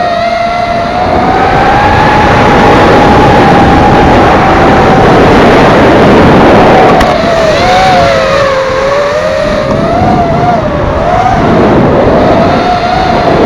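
FPV racing quadcopter's brushless motors and propellers whining, the pitch wavering up and down with the throttle, over a loud rush of air.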